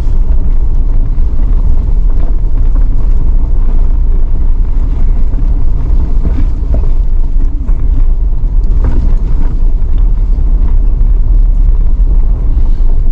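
Steady engine and tyre rumble of a 4x4 driving over a rough gravel mountain road, heard from inside the vehicle, with a few faint knocks from the bumps.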